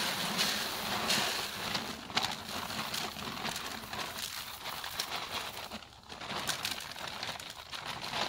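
Dry corn kernels being poured and stirred together with bait attractant, an uneven rustling hiss with irregular crackles.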